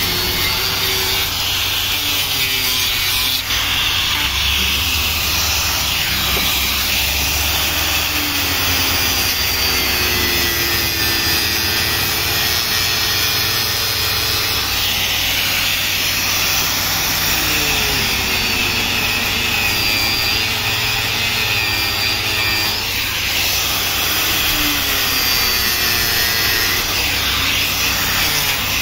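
Makita angle grinder running and grinding into a carved wooden board; its pitch sags and recovers again and again as the disc is pressed into the wood and eased off.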